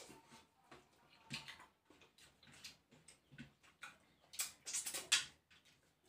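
Eating sounds from people eating crab and snails in coconut milk by hand: irregular mouth smacks and clicks, with a cluster of louder ones about four to five seconds in.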